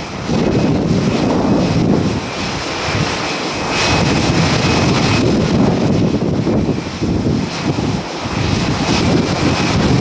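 Steady jet aircraft noise around the apron, with a thin high whine running through it, while strong gusting wind buffets the microphone in surges.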